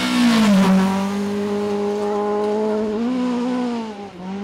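Toyota Corolla GT AE86 rally car's twin-cam four-cylinder engine running loud, steady in pitch. The pitch drops just before a second in, rises again around three seconds, then falls back and cuts off suddenly at the end.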